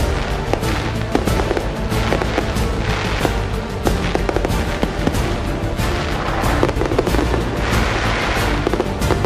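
Aerial fireworks going off in a rapid, continuous run of bangs, with a burst of crackling glitter near the end, heard over background music.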